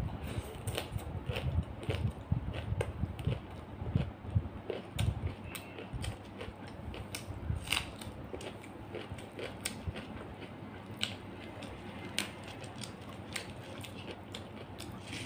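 Close-miked chewing and mouth sounds of someone eating rice and fish curry by hand: wet smacks and lip clicks. They are heavier and come thicker in the first half, then thin out to lighter clicks.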